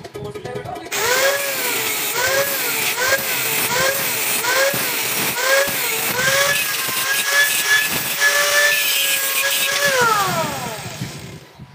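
Handheld angle grinder cutting into a metal tube. The motor starts about a second in; under load its whine dips and recovers about twice a second over a gritty hiss, then holds steady and falls away as the grinder is switched off and winds down near the end.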